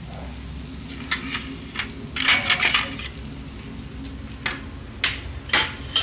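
Stainless steel plate and utensils clanking and scraping against a steel karahi as the hot baking plate is lifted out: single sharp clanks, with a burst of rattling clatter about two seconds in. A low steady hum runs underneath.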